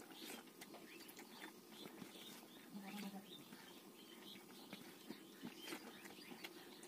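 Faint wet chewing and lip-smacking of a person eating rice and vegetables by hand, a run of small mouth clicks. A brief low tone sounds about three seconds in.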